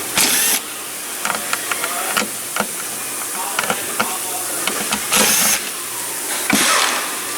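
Hands pulling off a cover to get at a car's fuel tank pressure sensor beneath the rear seat: rustling with many small clicks and knocks, and two short hissing bursts of noise, about half a second in and about five seconds in.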